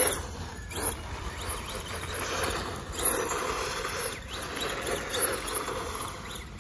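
Schumacher Cougar Classic RC buggy taking off across rough concrete. Its 17-turn brushed electric motor and gearbox whine high, rising and falling several times with the throttle, over the rasp of the tyres on the surface.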